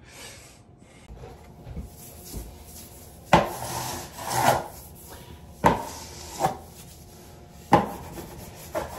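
York peel-and-stick vinyl wallpaper being pressed and rubbed onto the wall by hand and with a plastic smoother: a series of scraping, rustling strokes. The three loudest start sharply, about two seconds apart from one another.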